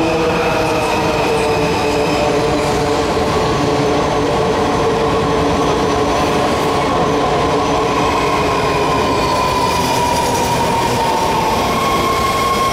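Washington Metro Red Line subway train pulling into an underground station, with a steady rumble of wheels on rail. Over it its motors whine in several tones that slowly drop in pitch as the train brakes.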